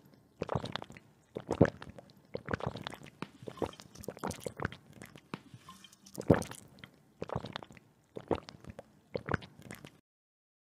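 Two people drinking water from glasses: a run of gulping and swallowing sounds at uneven intervals that stops abruptly near the end.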